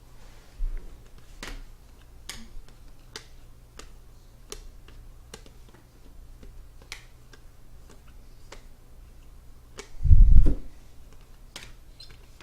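Trading cards being flipped through one at a time by hand, a sharp click or snap about once a second as each card is moved. A single low thump about ten seconds in.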